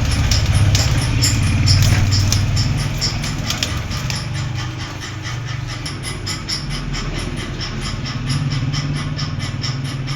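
A steady low mechanical hum, like an engine running, with a fast, even high ticking of about five pulses a second over it.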